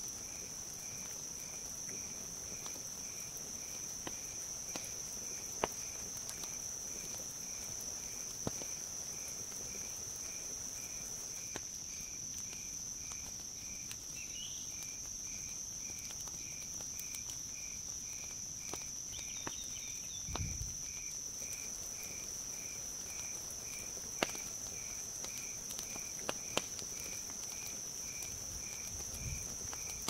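Wood campfire crackling, with a few sharp pops, over a steady high insect drone and a cricket chirping at an even pace. A soft low thump comes about two-thirds of the way through.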